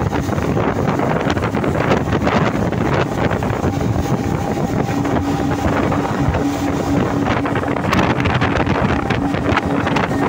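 Speedboat running at speed: the steady hum of its outboard engine under wind buffeting the microphone and the rush of the churning wake and spray.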